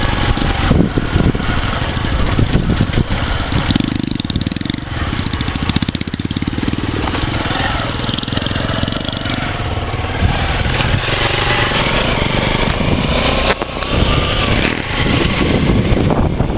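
Motorcycle engine running while riding, its pitch rising and falling as it changes speed.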